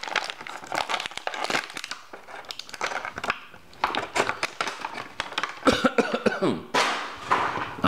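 Stiff plastic blister packaging crackling and rustling in irregular bursts as an action figure is worked free of it by hand.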